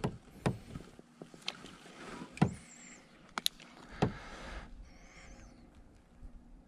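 A handful of sharp knocks and clicks, about a second apart, from gear being handled on a fishing kayak, over faint hiss.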